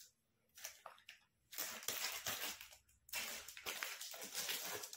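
Hands rubbing and smoothing an oiled polythene sheet on the wooden plate of a papad press: soft plastic rustling and squishing, in several stretches with short pauses.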